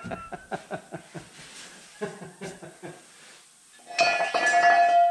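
Background guitar music: a quick run of picked notes, then a held note near the end.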